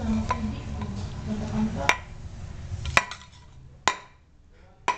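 Empty tin can knocking and clinking against a tiled floor as a kitten with its head stuck inside it moves about. The sharp metallic clinks come about once a second, each ringing briefly.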